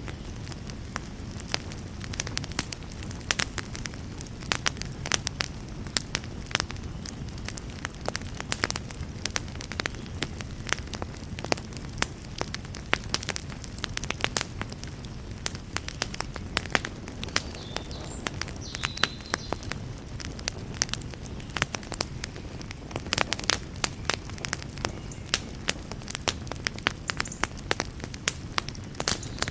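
Wood fire burning in a fireplace: frequent sharp crackles and pops, some clustered in quick runs, over a low steady rumble of the flames.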